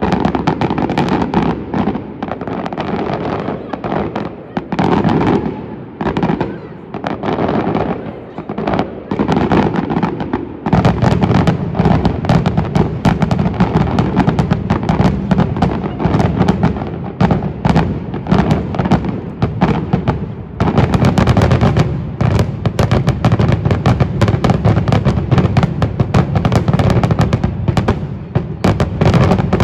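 Aerial fireworks display: shells bursting with bangs and crackle, in separate bursts with short gaps for the first ten seconds or so, then a dense rapid barrage of bangs with hardly a pause.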